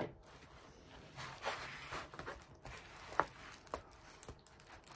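A diamond-painting canvas rustling and crinkling as it is handled and spread flat on a table, with a few short, sharp crackles, the loudest about three seconds in.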